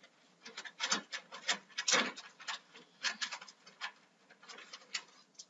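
Hands rummaging through small objects on a shelf: irregular clicks, taps and rustles as things are picked up and moved around.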